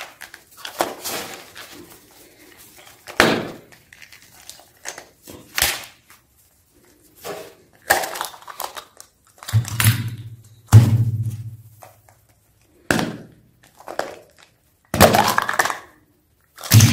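Yellow plastic Kinder Surprise capsule handled close to the microphone: about a dozen separate knocks, clicks and creaks as it is squeezed and pried open, with rustling of the wrapped toy parts inside.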